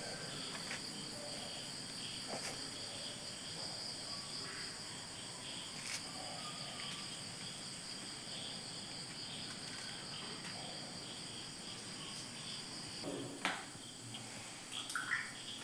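Crickets chirring steadily at a high pitch, stopping about 13 seconds in. A few short knocks and clicks follow near the end.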